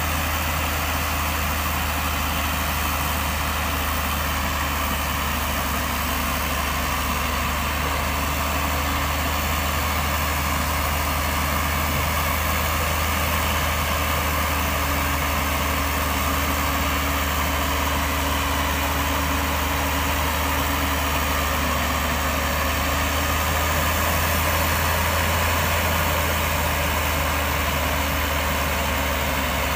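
Hyundai logging truck's six-cylinder diesel engine running steadily at a low, even speed.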